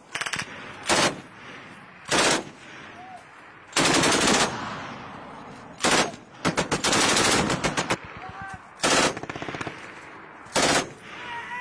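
Tripod-mounted machine gun firing in about eight bursts, most of them short and two lasting close to a second, with pauses of one to two seconds between them.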